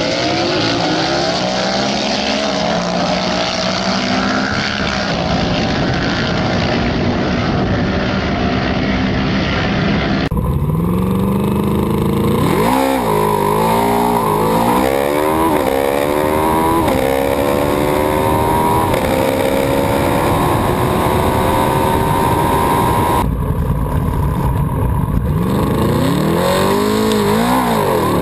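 Yamaha V-Max V4 engines on drag runs. First an engine heard from beside the track, its pitch climbing slowly under wind and crowd noise. Then, from a rider's on-board camera, the engine revs hard with a quick gear change about every second, the pitch rising and dropping with each shift, and near the end a few sharp throttle blips.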